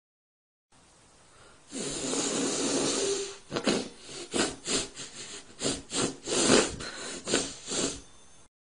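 A person snorting hard through the nose: one long noisy snort about two seconds in, then about ten short sharp snorts, roughly two a second.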